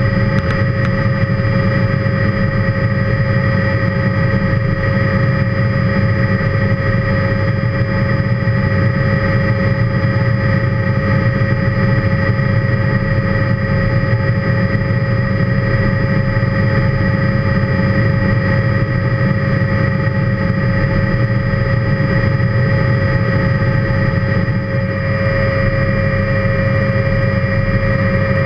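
Helicopter in flight heard from inside the cockpit: a loud, steady drone of engine and rotor with several constant whining tones over it. The level dips briefly near the end.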